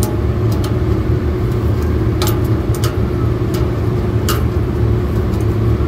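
Steady low mechanical rumble from running rooftop refrigeration equipment, with a faint steady tone in it. Several short metallic clicks of an adjustable wrench on the fan motor's wiring connector.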